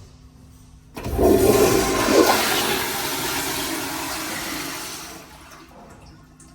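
American Standard Afwall wall-hung toilet flushing: a sudden rush of water starts about a second in, is loudest for the first second or so, then eases off and stops about five seconds in.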